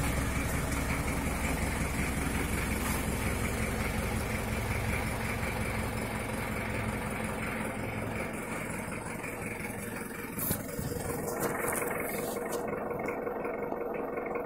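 1984 Toyota Hiace's diesel engine idling steadily. Its low rumble thins out about eight seconds in, and a single short knock sounds near the end.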